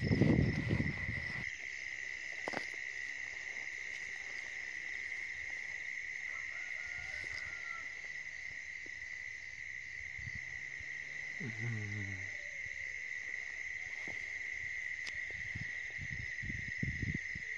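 A steady chorus of night insects, one unbroken high drone. It is joined by loud rustling and footsteps through grass in the first second or so and softer rustles near the end, with one brief low-pitched sound about twelve seconds in.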